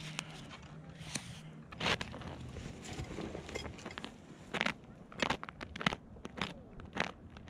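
Irregular crunching and crackling, with a run of sharp crunches about half a second to a second apart in the second half.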